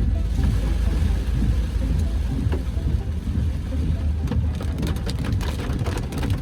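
Car cabin noise while driving on wet roads: a steady low road and engine rumble, with a patter of quick ticks from about four seconds in, like raindrops striking the car.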